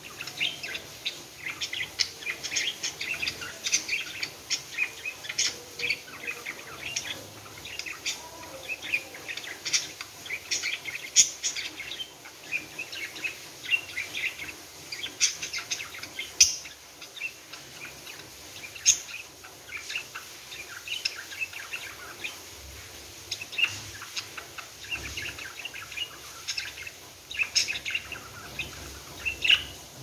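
Budgerigar chattering in a quick stream of high chirps and warbles, with a few sharper, louder calls scattered through.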